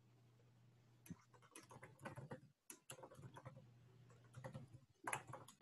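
Faint typing on a computer keyboard: irregular clicks of keys being struck, over a low steady hum.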